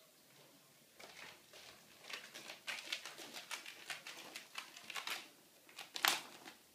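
Prairie dog scrabbling through a ribbed flexible plastic tube: a run of irregular scratchy rustles of claws and body against the plastic, starting about a second in, with the loudest scrape near the end.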